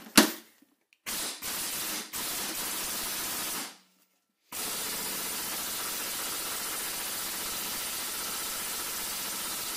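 Air impact wrench set to reverse on a hub castle nut: a sharp click, then the air motor's steady hiss in two long trigger pulls. The first pull stops a little before halfway and the second runs on.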